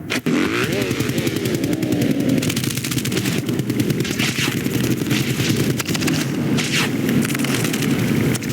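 Film sound effects: a dense, continuous rattle of rapid small hits, with a short pitched cry that rises then falls about half a second in.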